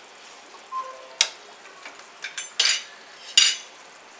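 Chicken curry simmering with a steady sizzle in the pan, while a metal spoon clinks sharply against the pan and a small steel cup about five times, the loudest clinks about two and a half and three and a half seconds in.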